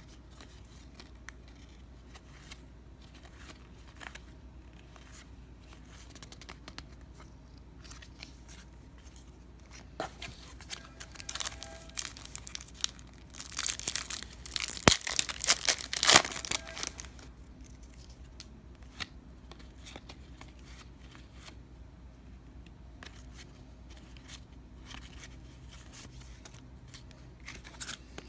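A trading-card pack wrapper being torn open: a loud crinkling rip about halfway through, with smaller crinkles just before it and light clicks and slides of cards being handled throughout.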